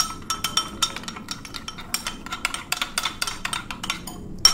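Steel spoon whisking yogurt in a glass bowl, clinking rapidly against the glass. The strokes pause briefly near the end, then come back with one louder clink.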